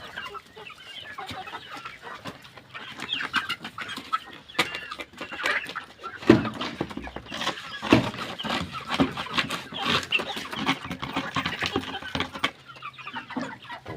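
A brood of young chicks cheeping continuously as they feed, with a few sharp knocks among the calls, the loudest about six and eight seconds in.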